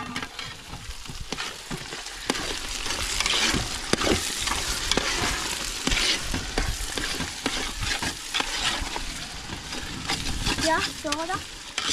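Sliced onions sizzling as they fry in a large aluminium pot, with a metal slotted spoon scraping and clinking against the pot as they are stirred. The sizzle is continuous, broken by many short scrapes and knocks.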